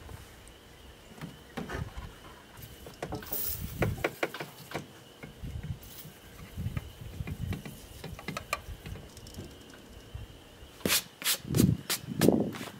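Scattered clicks and knocks of hands and a can working around a lawn tractor's open engine compartment, with no engine running. Near the end, a quick run of louder sharp knocks and clatter as the tractor's seat is swung back down.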